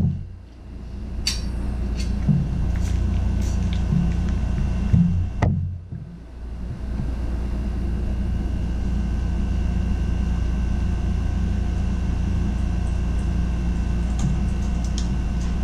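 Steady low room hum, with light handling noise from polishing a trumpet bell: a few short clicks in the first few seconds, a sharp knock about five seconds in, and faint ticks near the end.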